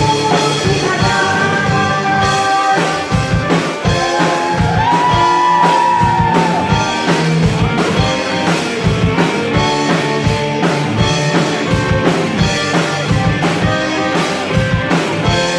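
Live band playing a rock arrangement with a steady drum-kit beat, guitars and button accordion (bayan), and women singing, including a long held note a few seconds in.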